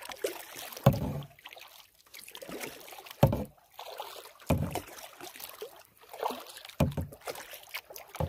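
Solo canoe being paddled: four strong strokes of the paddle through the water, a second or two apart, with water splashing and trickling between them.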